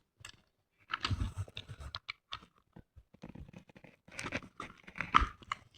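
Parts of an airsoft M4 rifle being handled and fitted back together: irregular clicks and knocks with some scraping, in two clusters, the loudest knock near the end.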